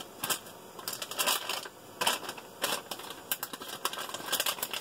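A ration food pouch of dehydrated mashed potatoes being creased and handled in the hand, its stiff packaging crinkling in irregular short crackles.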